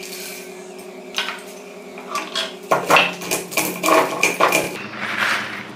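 Roasted hyacinth-bean seeds rattle out of a steel bowl onto a stone grinding slab. Then, from about three seconds in, a run of sharp crackles and knocks as a stone roller crushes them to split off their husks.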